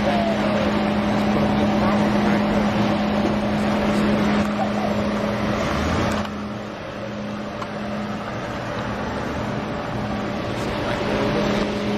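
Steady outdoor noise of wind and traffic rumble on a camera microphone, with a steady low hum running under it. About six seconds in the noise drops and changes character.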